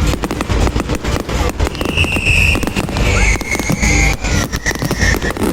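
Aerial fireworks barrage: a dense, rapid string of bangs and crackles from shells bursting overhead.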